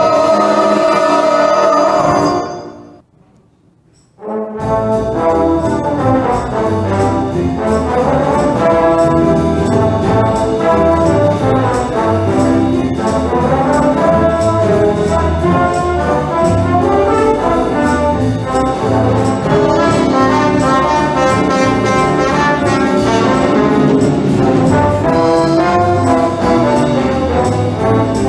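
Brass-led band music. A held chord fades out a few seconds in, followed by a second or so of quiet. A new piece then starts, with brass over a steady cymbal beat.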